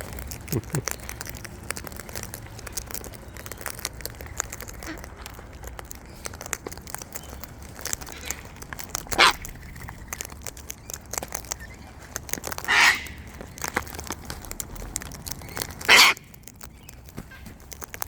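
Wild sulphur-crested cockatoos screeching three times, harsh loud calls about three seconds apart in the second half, over a constant patter of small clicks and crackles.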